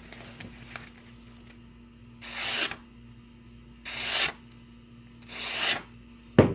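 Bushcraft knife slicing through the edge of a sheet of paper as a sharpness test: three rasping cuts of about half a second each, about a second and a half apart, each growing louder as the blade runs through. A single sharp knock follows near the end.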